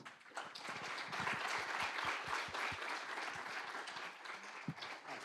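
Audience applauding, a dense patter of many hands clapping that swells in the first second or two and gradually dies away near the end.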